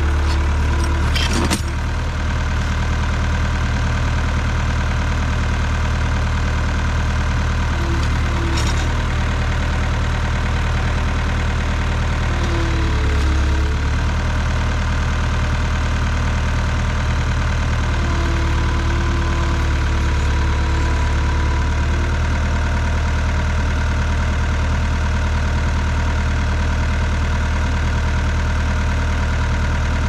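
Cat 247 skid steer's diesel engine idling steadily, with a couple of short metallic clanks, about 1.5 and 8.5 seconds in.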